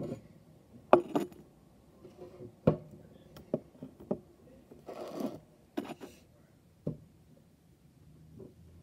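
Handling noise from tidying: a string of sharp knocks and clatters as small objects are picked up and set down, with a short rustle about five seconds in.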